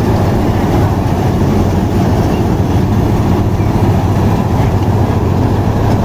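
Banglamark MS-1200 Mudmaster combine harvester running steadily while cutting rice, a constant low engine hum under the even noise of the machinery.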